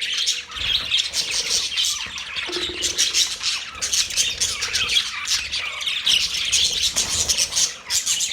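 Budgerigars chirping and chattering in a continuous stream of rapid squawks and warbles, easing briefly near the end.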